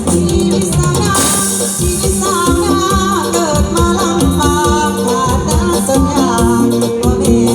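Thai lae singing with a band: a woman's ornamented, wavering vocal line over a steady beat with shaker and keyboard, the voice entering about a second in.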